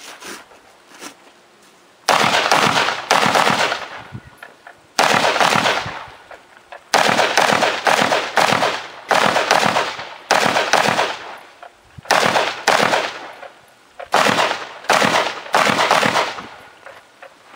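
Gunshots fired in rapid strings during a 3-gun match stage: about eight bursts of several quick shots each, separated by pauses of a second or so, each shot with a short echo.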